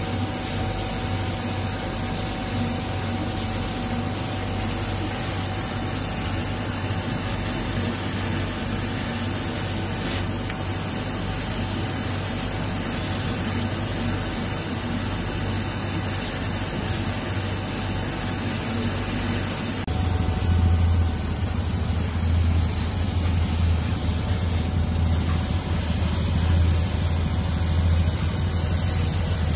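Laser cutting machine running as it cuts MDF: a steady mechanical hum from its fans, air assist and head motors. The hum gets louder and deeper about two-thirds of the way through.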